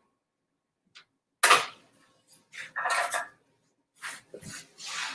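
A kitchen wall-oven door shuts with a loud bang about a second and a half in. Shorter scraping and clattering handling noises follow.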